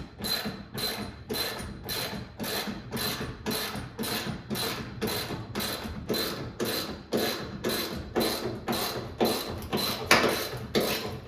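Ratchet wrench being worked back and forth to tighten the trunk-lid hinge bolts, a short burst of clicks on each stroke at an even pace of about two and a half strokes a second.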